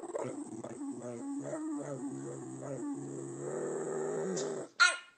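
Dog making a long, drawn-out growly 'talking' vocalisation that wavers in pitch. It stops just before the end, when one short, loud, sharp call follows.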